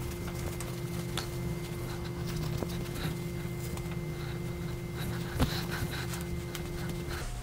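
Dry washcloth rubbing over a bare scalp: faint rubbing and handling noises over a steady low hum, with one soft knock about five and a half seconds in.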